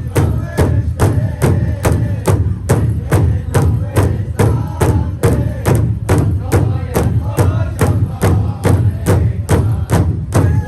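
Powwow drum group: singers striking a large shared drum in a steady, even beat while singing together.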